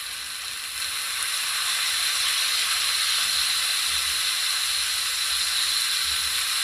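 Prawns and vegetables sizzling in butter in a frying pan, a steady hiss that grows louder about a second in as lemon juice is spooned into the hot pan.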